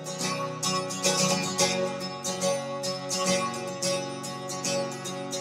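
Background music: a strummed guitar playing a quick, even rhythm over held notes.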